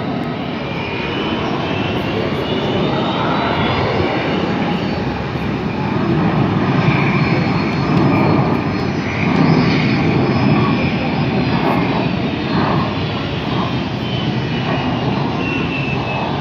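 Jet airliner engines running: a steady loud rush with high whining tones that slowly shift in pitch, loudest around the middle.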